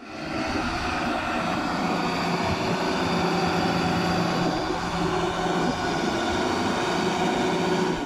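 Engine of a large Caterpillar forklift running steadily as the truck drives along, an even engine hum with no change in pitch.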